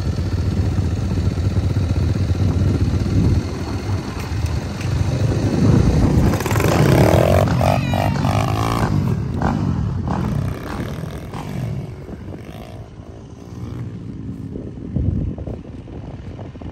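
Small dirt bike engine idling, then revving up in rising sweeps as the bike pulls away about five seconds in. It fades with distance over the last several seconds.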